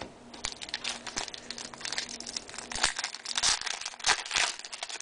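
Foil trading-card pack wrapper crinkling and tearing as it is handled and opened, in quick irregular crackles.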